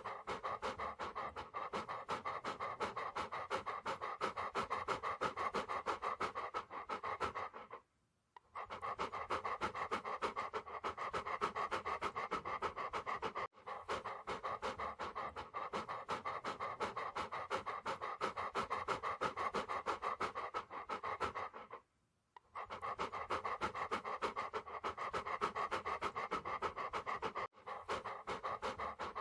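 Dog panting fast and steadily in a continuous run of short, even breaths. It cuts out for about half a second twice, around 8 and 22 seconds in.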